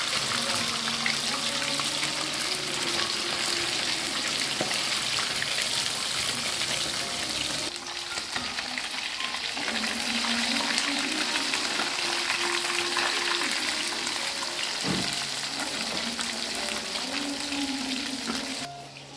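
Mujair (tilapia) deep-frying in a wok of hot oil: a steady, dense sizzle, with a single spatula knock on the wok about fifteen seconds in.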